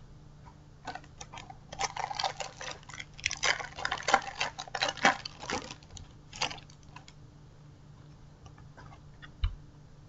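Foil trading-card packet crinkling and tearing open in the hands, a dense run of crackles that thins out after several seconds. A single soft knock near the end.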